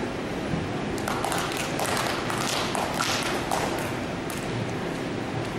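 Cheerleaders clapping and stomping on a gym mat: a run of sharp, irregular claps and thumps lasting about three and a half seconds, over the steady hum of a crowded gymnasium.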